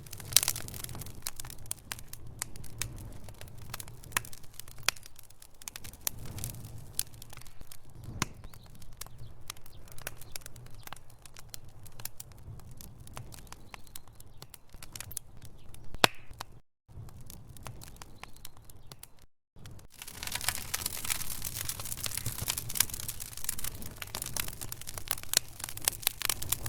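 Wood fire burning in a fireplace: logs crackling and popping in dense irregular snaps over a low rumble of flame. The sound cuts out completely twice in the middle, and from about two-thirds of the way in the crackling grows denser and louder.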